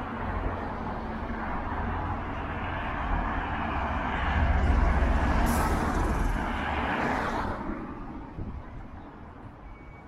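A motor vehicle driving past: its engine rumble and tyre noise build up, are loudest about halfway through, and fade away over the last couple of seconds, with a brief sharp hiss at the loudest point.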